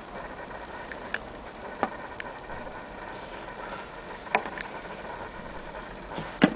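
Scattered light knocks and clicks, about five at uneven intervals, the loudest near the end, over a steady hiss: an empty wooden Vienna wall clock case being handled.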